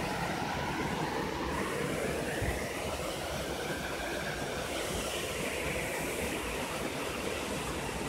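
Small waterfall pouring into a rock pool: a steady rushing of water.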